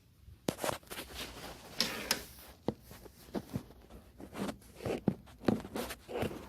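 Irregular rustling with sharp clicks and knocks, something being handled close to the microphone.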